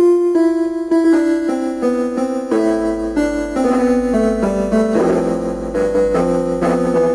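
Yamaha CP11 electronic keyboard playing a run of piano-tone notes and chords, about two new notes a second, each ringing on and fading like a piano.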